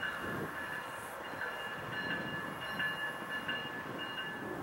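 Amtrak Empire Builder passenger train approaching from a distance: a steady low rumble with thin, steady high-pitched tones over it.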